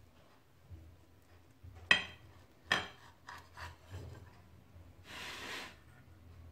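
Table knife cutting through a soft pan-baked apple cake on a ceramic plate. Two sharp clinks with a brief ring as the blade meets the plate, about two and three seconds in, then a few softer taps, and a short rasping scrape of the blade drawn through the crust about five seconds in.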